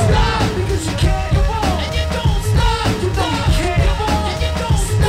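A song with a sung lead vocal over a steady beat and bass.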